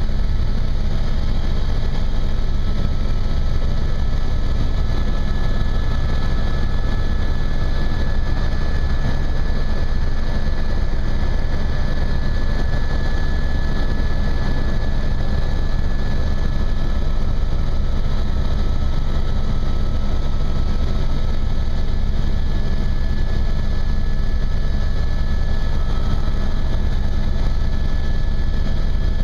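Helicopter in steady flight heard from inside the cabin: a loud, unchanging drone of engine and rotor, with a thin steady high tone above it.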